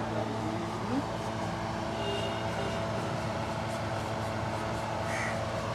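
Steady mechanical hum of a running motor, holding several constant tones, with a brief high chirp near the end.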